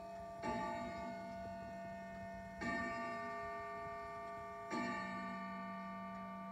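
Emperor grandfather clock's tubular chime striking the hour of twelve: three strikes on the same tone about two seconds apart, each left to ring and fade, with the last dying away near the end.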